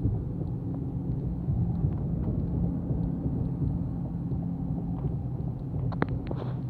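Steady low engine and road rumble inside a moving vehicle's cabin. A few sharp clicks come near the end.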